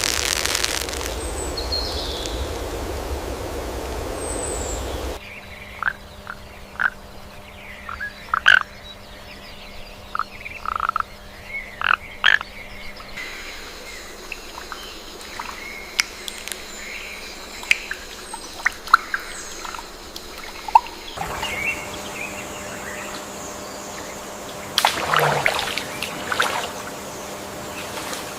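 Outdoor nature sound in several abrupt segments: a steady rushing noise for about the first five seconds, then many short chirping animal calls, scattered and irregular, with a busier cluster near the end.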